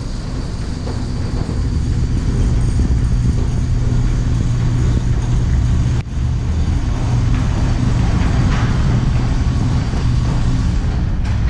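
2013 Audi Q7's 3.0-litre supercharged V6 idling steadily, a low even hum.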